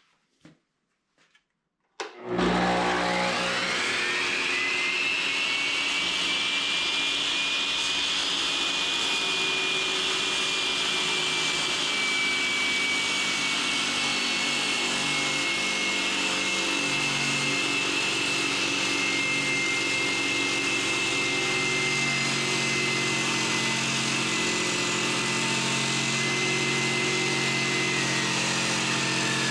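iQ MS362 masonry saw starting up about two seconds in, its high whine rising quickly as the blade comes up to speed, then running steadily; the whine sags slightly in pitch later on as the blade cuts through a 2-inch concrete paver.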